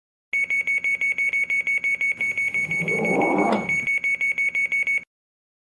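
The door-closing warning beeper of an MTR Metro-Cammell M-Train sounds a fast, steady series of high beeps and then cuts off suddenly. The doors slide shut about three and a half seconds in and meet with a thud.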